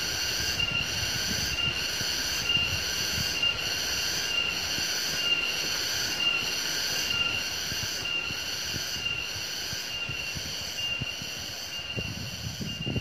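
A chorus of insects buzzing in several steady high tones that swell in a regular pulse about once a second, over a low rumbling noise.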